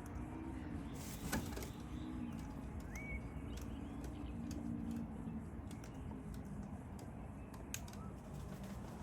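Birds at a feeding spot: a brief flurry of wing flaps about a second in and a short rising bird chirp about three seconds in, with scattered faint clicks over a steady low hum.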